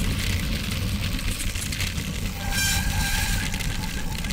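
Steady rush of wind and tyres rolling on sandy gravel from a bicycle at speed. A little over two seconds in, a bicycle brake squeals with a high ringing tone for about a second as the coasting rider slows.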